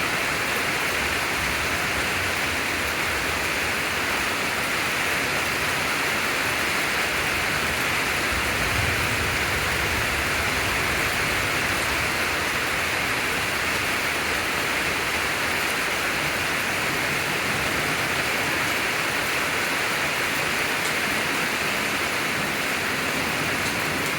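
Steady heavy rain pouring down during a thunderstorm, with a brief low rumble about nine seconds in.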